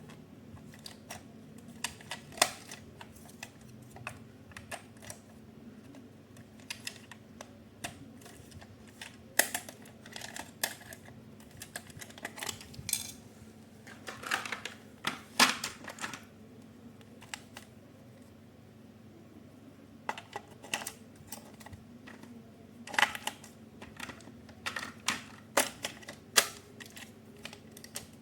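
Irregular clicks and taps of hard plastic being handled, with a short rustle in the middle, as an RC toy car and its packaging are unboxed. The clicks come in loose clusters, busiest a third of the way in and again near the end.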